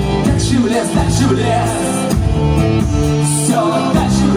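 A rock band playing live, with a singing voice over guitar and a steady bass line.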